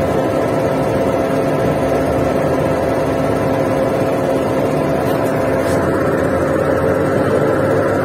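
Putzmeister 49-5 concrete pump truck's engine and hydraulic pump running steadily, a constant drone with a steady hum, while the plunger cylinders' solenoid valve is switched on again. That solenoid valve is stiff and sticking, so the plunger cylinder pressure fails to build.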